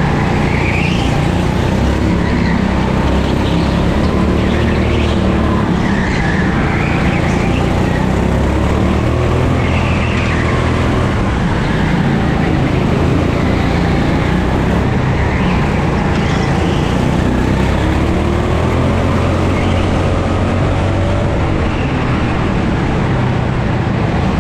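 Rental go-kart's 9 hp engine running hard on track, its pitch rising and falling as it accelerates out of and slows into corners, with brief high tyre squeals now and then.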